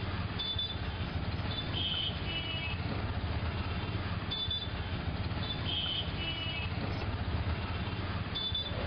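Street traffic with a steady engine rumble, cut by clusters of short high-pitched beeps that repeat in the same pattern about every four seconds, as if looped.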